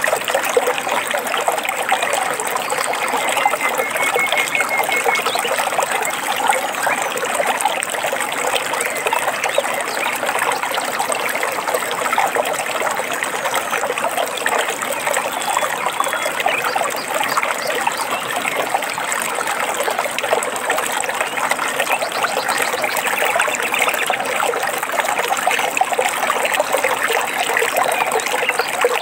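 Running water trickling and babbling steadily, like a shallow stream over stones.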